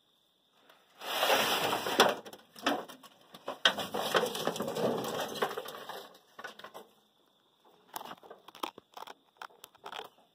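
Dry leaf litter and grass rustling and crunching as it is stirred with a stick. The noise is loud and dense with sharp cracks for about five seconds, then turns into lighter, scattered rustles and taps.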